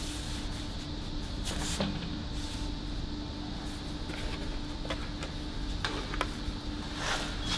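Steady workshop hum with a few faint handling clicks and rustles as a welding helmet is flipped down and a TIG torch is brought to a stainless pipe; no arc is struck yet.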